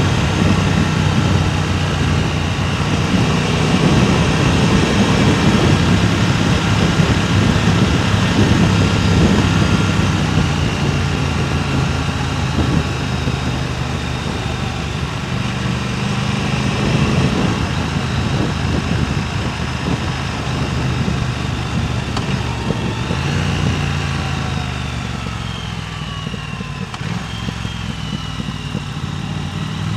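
Motorcycle engine running on the move, with a steady low engine note under a constant rush of wind on the microphone. Near the end the engine note drops away and the rush eases a little, while a few faint higher tones glide up and down.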